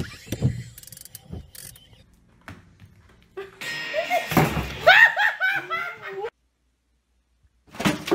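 A few dull thumps and knocks, then a high, excited voice with sharply rising and falling pitch for about three seconds, and a second burst of it near the end.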